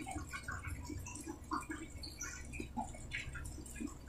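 A quiet pause: faint room tone with a steady low hum and scattered soft, short clicks and blips.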